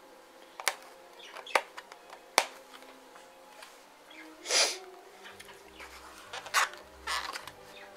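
Cardboard and plastic packaging being handled and opened by hand: a few sharp clicks, then a short rasp about four and a half seconds in and more rustles near the end, as tape is worked off the package.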